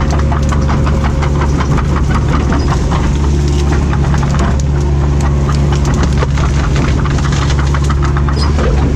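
A Cat 307B excavator's diesel engine runs steadily under work, with frequent irregular cracks and snaps as the machine pushes and tears through scrub and brush.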